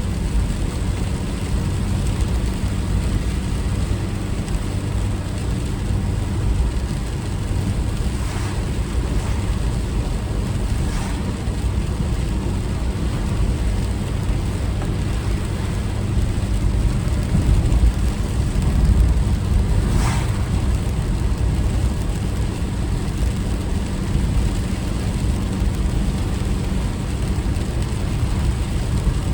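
Steady low rumble of a car driving, road and engine noise heard inside the cabin, with a few faint brief sounds about 8, 11 and 20 seconds in.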